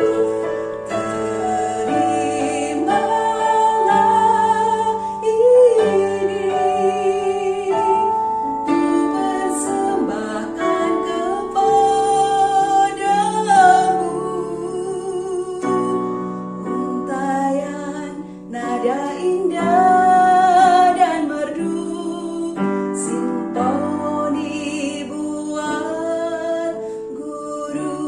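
Female voice singing a slow song with wavering held notes, over piano or keyboard accompaniment.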